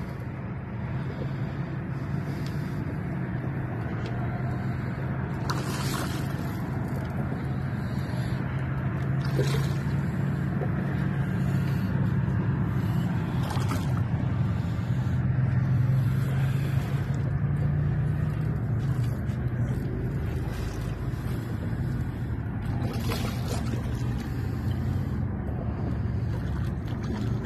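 Steady low hum of a boat motor running, under a wash of wind and water noise, with a few brief faint knocks.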